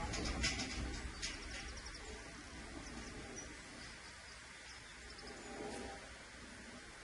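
Outdoor background noise: a low steady rumble with a few faint, short bird chirps, and some light clicks in the first second or so.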